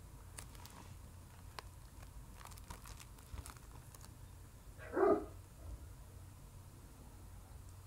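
A shrink-wrapped plastic Blu-ray case handled and turned over, with faint scattered clicks and crinkles. About five seconds in comes one short, loud yelp-like cry, about half a second long.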